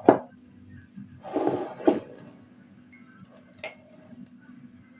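Hard objects clinking and knocking: a sharp knock at the start, a short scrape about a second and a half in ending in another knock, and a lighter click later, over a faint steady low hum.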